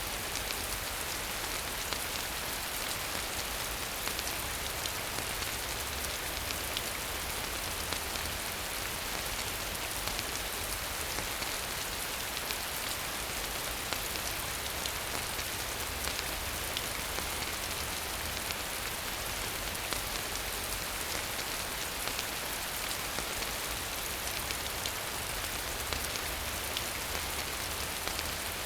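Steady rain falling: an even hiss made of many small drop hits, unchanging in strength.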